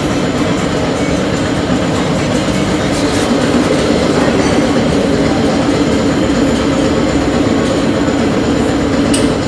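Steady mechanical drone with a constant low hum, unchanging throughout.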